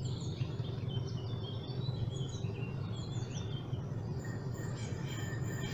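Birds chirping and singing over a steady low rumble. About three-quarters of the way through, a steady high-pitched whine sets in, the first sound of an approaching train on the line.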